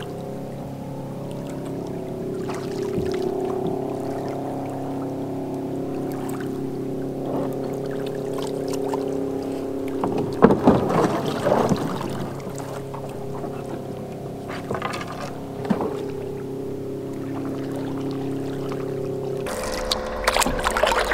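Small outboard motor pushing a canoe, running at a steady speed with an even drone. A brief rushing noise comes about ten seconds in, and the engine note shifts near the end.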